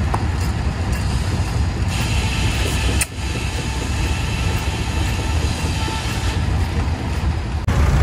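Old sawmill machinery running outdoors with a steady low engine rumble; the mill is driven by a 1914 Rumley Oil Pull kerosene tractor. The sound drops out briefly about three seconds in.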